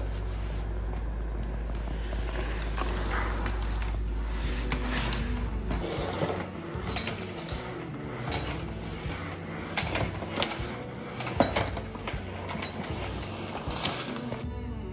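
Corded Swiffer Bissell steam mop running with a steady low hum. From about six seconds in, its head gives irregular clicks and knocks as it is pushed back and forth over a tile floor.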